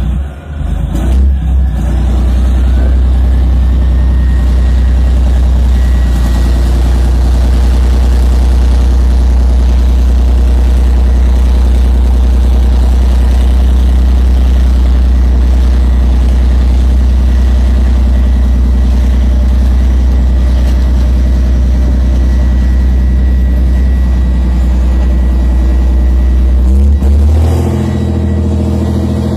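Merkava tank's V12 diesel engine running loud and steady with a deep drone and a thin high whine that rises over the first few seconds, then holds. About 27 seconds in, the engine note rises in pitch as it revs up.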